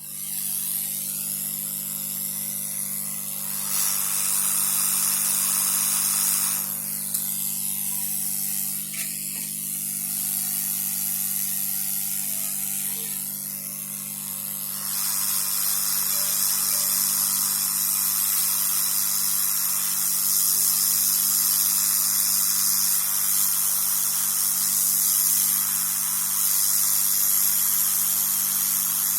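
Hot air rework station blowing a steady jet of air with a fan hum beneath it, used to heat the board while new MOSFETs are soldered onto their re-tinned pads; the airflow grows stronger about fifteen seconds in.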